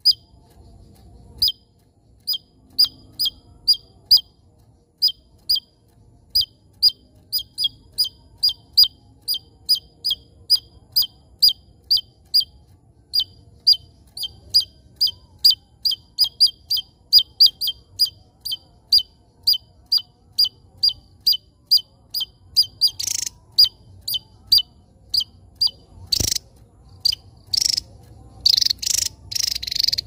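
Small caged songbird calling a long run of short, sharp, high chirps, each a quick downward flick, about two to three a second. From about two-thirds of the way through, a few louder, harsh, rasping bursts break in.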